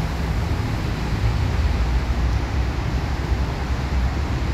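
Steady low rumble with a hiss, typical of background vehicle noise.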